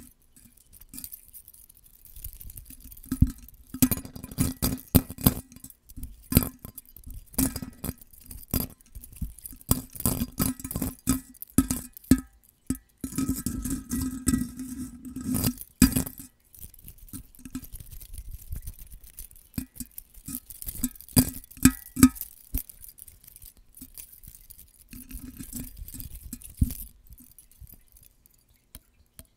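Gold metal hair claw clips tapped, clinked and scraped against a condenser microphone's metal grille: quick irregular clusters of sharp clicks, with a few short pauses.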